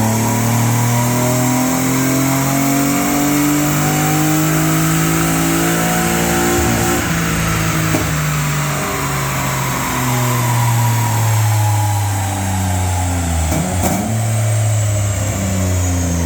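Ford Mondeo 2.5 V6 engine running at full throttle on a rolling road dyno, its revs climbing steadily for about seven seconds. It then comes off the throttle and winds down with a high falling whine, and a few sharp crackles from the exhaust on the overrun near the end.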